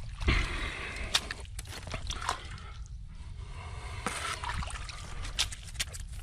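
Water sloshing and splashing with irregular small knocks and clicks as handfuls of mud and debris are scooped up off the bottom of knee-deep water.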